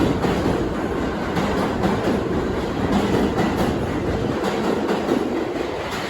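R62A subway train running along the rails: a steady, loud noise of steel wheels on track.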